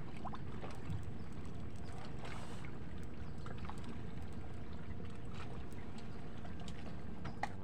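Small boat's motor running at idle with a steady low hum, with a few faint clicks and knocks.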